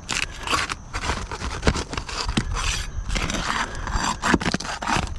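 Roof shingles being scraped and pried loose by hand: a run of irregular rough scraping strokes with a few sharp clicks and knocks.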